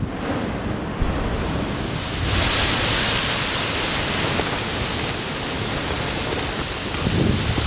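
Rushing noise of an ash explosion jetting from a volcanic crater vent, which grows louder and brighter about two seconds in, mixed with wind on the microphone.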